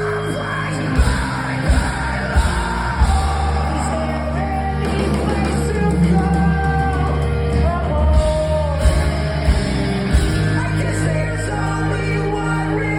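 Live rock band playing, with loud distorted guitars, bass and drums and a singer alternating sung lines with yelled vocals.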